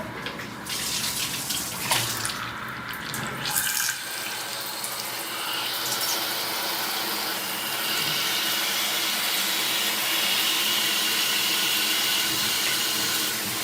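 Water spraying from a 7-inch rainfall shower head just turned on. The flow wavers for the first few seconds with a couple of knocks, then settles into a steady spray that grows a little louder about eight seconds in.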